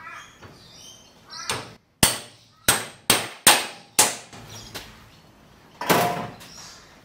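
A hammer striking a Holden Commodore lower control arm clamped in a bench vise, tapping a tight new bush and its steel ferrule home. There are about six sharp metallic blows in quick succession, then a longer, ringing strike near the end.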